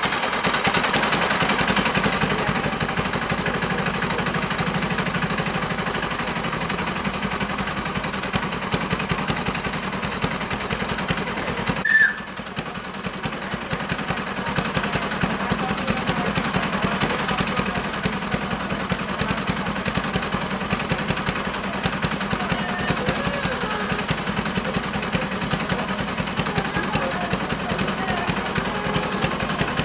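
Small engine of a ride-on scale model diesel locomotive idling steadily with a fast, even beat. A sharp click about twelve seconds in, after which the engine sounds a little quieter.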